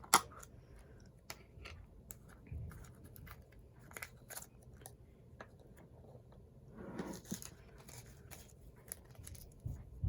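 Quiet hand work with slime and its containers and packaging: scattered small clicks, taps, scrapes and crinkles.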